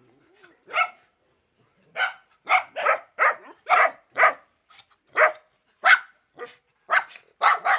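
Dogs barking: one bark about a second in, then an irregular run of short barks, about two a second, from about two seconds on.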